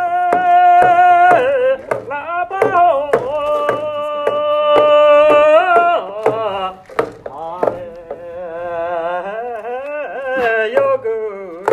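Singing with long held notes, some sliding and wavering, over a steady percussive beat.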